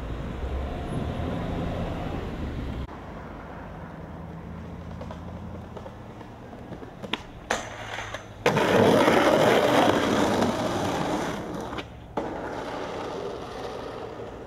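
A skateboard's tail pops and clicks, then the board grinds loudly along a metal handrail for about three seconds. After that, skateboard wheels roll on pavement. The first few seconds hold only a low steady rumble.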